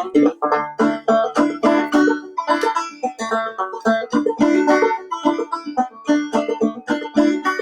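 Clawhammer banjo playing an old-time fiddle tune solo, with quick, even picked notes and brushed strums in a steady rhythm.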